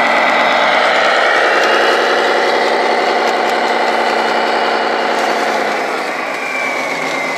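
Radio-controlled scale Scania 8x4 hook-lift truck model running with a steady diesel engine sound, growing quieter near the end as the truck drives away.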